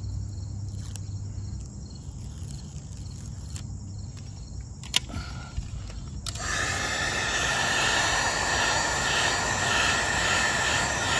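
A heat gun switches on about six seconds in and blows steadily, its fan whirring as it warms the double-sided adhesive tape on a motorcycle saddlebag reflector. Before that there is only quiet handling, with one sharp click about five seconds in.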